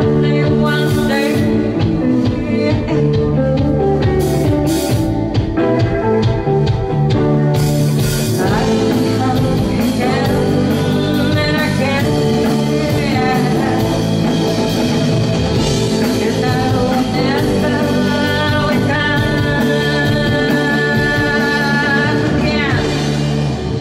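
Live rock band playing with a woman singing lead vocals into a microphone over guitar.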